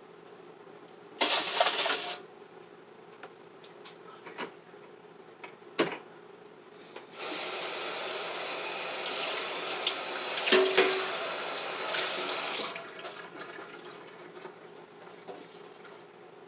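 Kitchen sink tap running in two spells: a short burst about a second in, then steady running water for about five seconds from around seven seconds in. A few knocks of dishes in between, and a clatter partway through the longer run.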